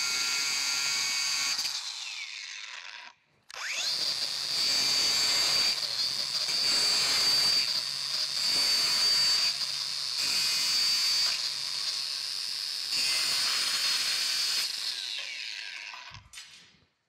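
DeWalt cordless angle grinder with a grinding disc cutting through rusty steel U-bolts. It runs for about three seconds and spins down, starts again with a rising whine, cuts steadily for around eleven seconds, then winds down near the end.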